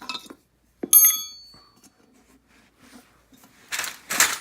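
A metal pry tool levering a scooter tire off its wheel rim: a sharp ringing metal clink about a second in, then a short scraping rush of rubber against the rim near the end.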